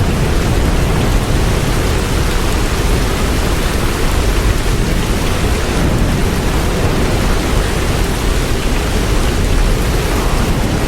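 Hurricane wind and heavy rain: a loud, steady rushing noise with a deep rumble underneath.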